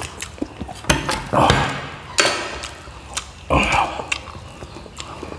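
Close-up eating sounds: chewing and crunching crispy deep-fried pork (lechon kawali), with a string of wet mouth clicks and smacks.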